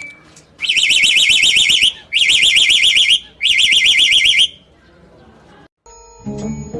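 A high, fast-warbling alarm-like sound in three loud bursts of about a second each, with short gaps between them.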